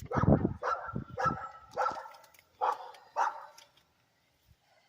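A dog barking, about six short barks in quick succession over three and a half seconds.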